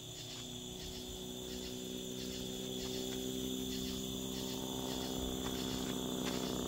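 Crickets chirping in a steady pulsing chorus, with a low steady drone underneath that slowly grows louder.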